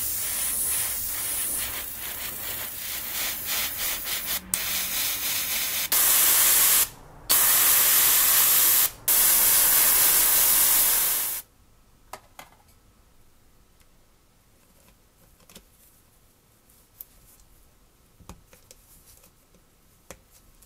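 Pressurized spray hissing, first steadily for about six seconds, then in three louder bursts with short breaks between them, stopping about eleven seconds in. Afterwards only a few faint clicks and taps.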